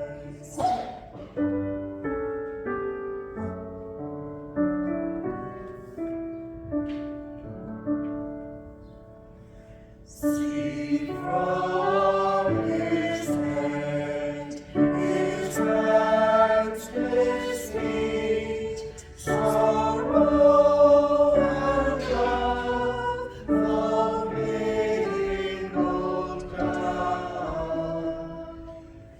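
Church choir singing a hymn: soft held notes at first, then from about ten seconds in a louder, fuller passage of many voices with clear consonants.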